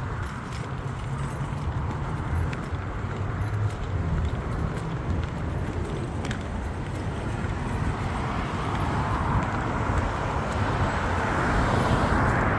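Street traffic: cars running past on a city street, with one passing closer and louder near the end.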